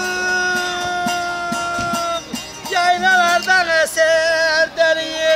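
Bağlama (long-necked Turkish saz) being plucked while a man sings a long held note without words. About halfway through, the voice breaks into a wavering, ornamented run.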